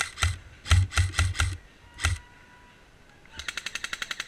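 Airsoft rifle fire: a quick, uneven string of single shots with low thumps over about two seconds, then after a short pause a rapid full-auto burst of about a dozen shots a second starting near the end.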